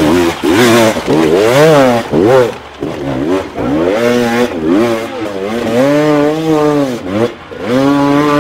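Off-road dirt bike engine revving in repeated bursts, its pitch rising and falling about seven times, as it is worked under load up a steep rock climb.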